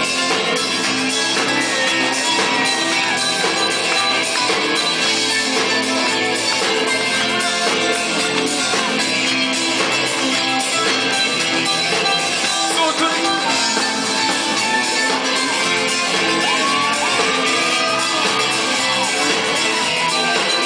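Live band playing amplified music, with drums, electric bass guitar and keyboards, and a voice singing over it.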